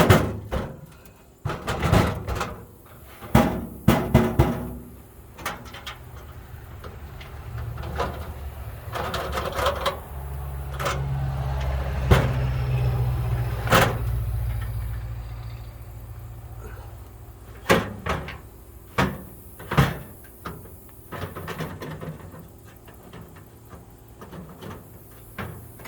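Knocks and clanks of a metal toolbox being handled, its drawers sliding in and out. A longer low rumble comes in the middle, as a drawer rolls along its runners.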